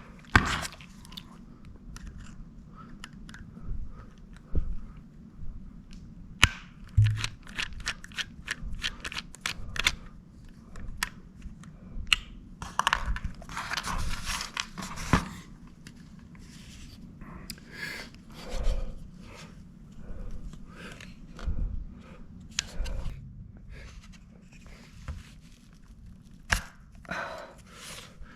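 Plastic casing of a Seagate external hard drive being pried and pulled apart by hand: irregular clicks, snaps and scraping of plastic parts, over a faint steady low hum.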